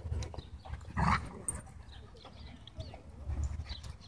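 A dog gives one short, loud vocal outburst about a second in, with fainter dog sounds around it.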